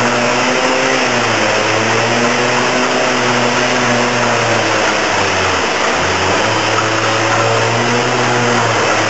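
Fire engine pumps running at a fire scene: a steady engine drone whose pitch steps slightly up and down a few times, under a loud, even rushing noise.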